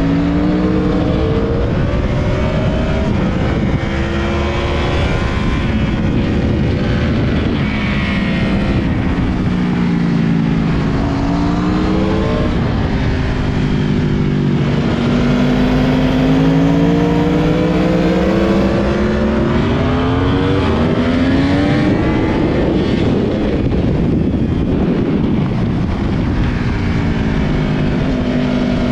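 Yamaha YZF-R1's inline-four engine at race pace on track, its pitch climbing hard under acceleration and dropping again into the corners several times over, with a steady rush of wind noise at speed.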